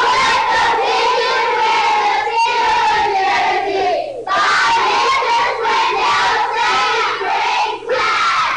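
A group of children shouting together in chorus, in two long stretches with a short break about four seconds in.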